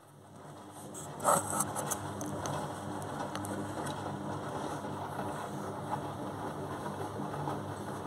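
Beko front-loading washing machine turning its drum in the wash: the motor hum builds up over the first second, then runs steadily while the water and laundry slosh and tumble, with a brief clatter about a second in.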